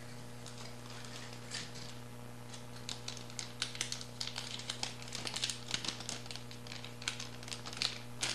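Plastic bags crackling in quick irregular bursts as they are handled, a small clear zip bag holding a coin-cell battery and a silvery anti-static bag, heaviest from about two and a half seconds in. A steady electrical hum runs underneath.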